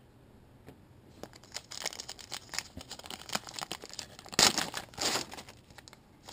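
Crinkling of a trading card pack's wrapper being handled and opened, in irregular bursts that are loudest about four and five seconds in.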